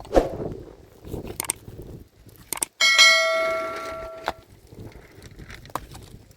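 A metal digging tool strikes stone, giving one sharp metallic clang that rings for about a second and a half, with duller knocks before and after it.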